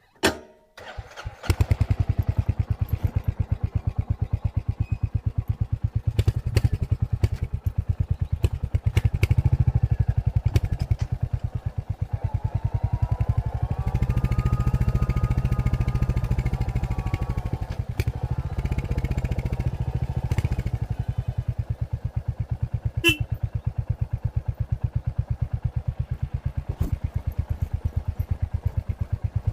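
Royal Enfield Hunter 350's single-cylinder engine starting about a second in, then running steadily with an even thump from the stock exhaust.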